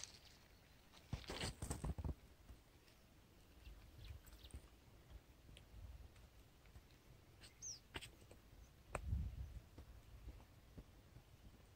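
Faint handling noise close by: a burst of rustling and clicking about a second in, a lone click later and a dull thump near the end. A single short bird chirp sounds in the background.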